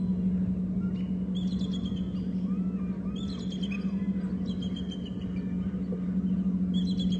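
Bald eagles calling in short bursts of high, quick chittering notes that fall in pitch, a handful of times about every one to two seconds, over a steady low hum.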